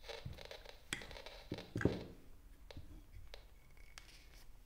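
Light clicks, taps and knocks of hands handling a small plastic container and a block of wood, scattered irregularly, with a louder knock about two seconds in.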